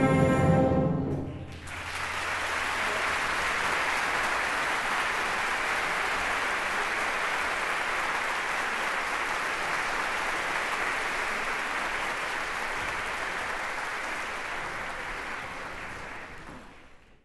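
A youth symphony orchestra's final held chord stops about a second in, and an audience breaks into steady applause that fades out near the end.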